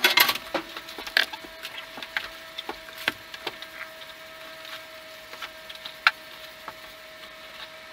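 Rummaging through a cardboard box of parts: scattered clicks, knocks and light rattles of parts and packaging being moved about, with a sharper knock about six seconds in.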